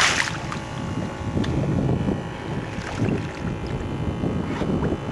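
A hooked bull shark splashing at the surface, with a loud splash right at the start, then water sloshing. Wind buffets the microphone throughout.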